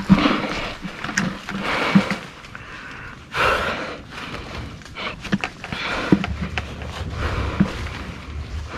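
A climber scaling a tree trunk: irregular knocks and scrapes of gloved hands and feet against bark, with a longer rasping scuff about three and a half seconds in. Low wind rumble on the microphone near the end.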